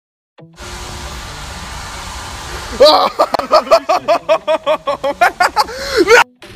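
A person's high-pitched voice giving a rapid run of short cries, about five a second, over a steady hiss; it cuts off suddenly near the end.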